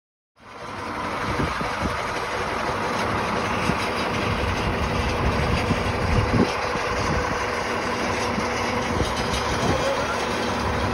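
International MV-series service truck's diesel engine idling steadily, heard close to the truck.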